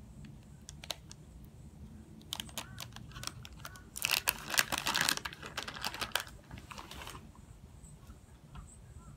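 Crinkly lunch packaging being handled: scattered clicks, then about three seconds of dense loud crackling and rustling in the middle, tailing off into a few faint ticks.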